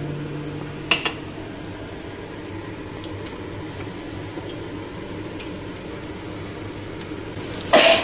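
Mustard oil heating in a black iron wok on the stove, a steady low hiss with a couple of light clicks about a second in. A short loud burst comes near the end.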